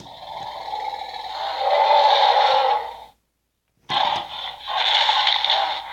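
Mattel Roarivores Triceratops toy playing its recorded electronic dinosaur roar through a small built-in speaker. It plays twice: one roar lasts about three seconds, then comes a short pause, and a second roar starts about four seconds in.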